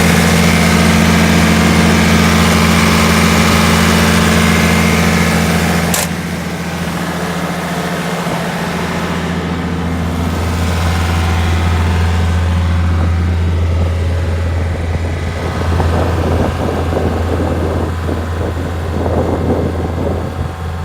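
Gehl 4640 skid steer's engine running steadily. There is a sharp click about six seconds in, after which the engine sound is a little quieter and less even.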